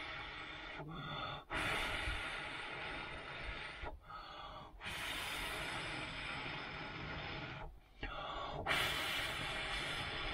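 A man blowing steadily into a smouldering wood-chip fire in a stainless steel vegetable-steamer firebox to liven it. Long breathy blows of about three seconds each are broken by quick breaths in about a second in, near four seconds and near eight seconds.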